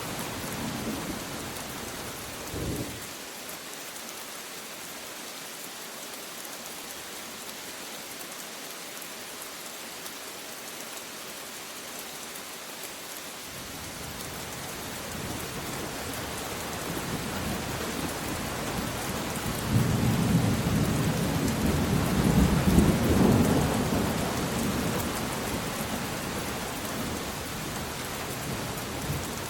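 Steady rain falling. A brief low thump comes about three seconds in, then from the middle a long roll of thunder builds, is loudest about two-thirds of the way through, and slowly fades.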